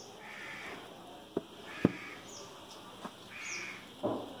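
Crows cawing, three separate caws about a second and a half apart. Between them come four sharp clicks from a cardboard smartphone box being handled and turned over; the loudest is a little under two seconds in.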